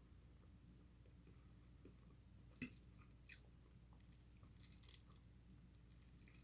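Faint close-up chewing with soft wet mouth clicks, and one sharper click about two and a half seconds in.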